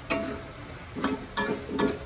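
Metal spatula clanking and scraping against a wok while stirring diced fried tofu and pork, four sharp clanks each with a short metallic ring.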